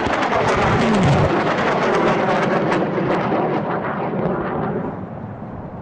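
Two 220 mm rockets launching from a BM-27 Uragan multiple rocket launcher: a loud crackling rocket-motor roar that fades away from about four seconds in as the rockets fly off.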